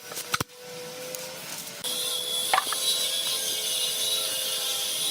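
A couple of short clicks, then a power tool starts up about two seconds in and runs with a steady high hiss, over a faint steady hum.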